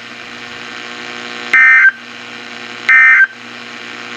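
NOAA Weather Radio SAME digital data tones: three short bursts of data about 1.4 seconds apart, the last one right at the end, over steady radio hiss and hum. These short bursts right after an alert message are the end-of-message code.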